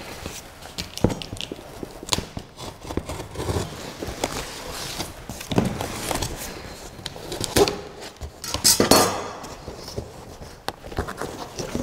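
Scissors cutting through the packing tape on a large cardboard box, with scattered clicks and knocks of the blades against the cardboard. A longer scraping rustle comes about nine seconds in, and the cardboard flaps are pulled open near the end.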